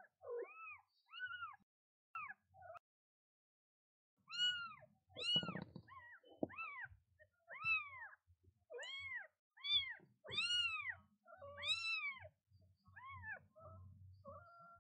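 Newborn kitten crying over and over: about fifteen short, high-pitched meows, each rising and falling in pitch, with a pause of about a second and a half partway through. A faint low rumble runs underneath.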